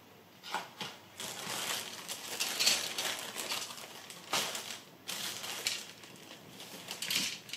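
Clear plastic bag crinkling and rustling in irregular bursts as plastic model-kit sprues are pulled out of it.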